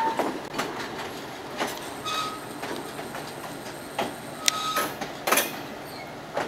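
Train car rolling along the track: a steady rumble broken by irregular clicks and knocks from the wheels and car body, with two short high squeaks, about two seconds and four and a half seconds in.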